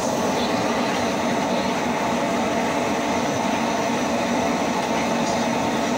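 Potato fries deep-frying in a wide aluminium pan of hot oil over a gas burner: a steady, dense sizzle.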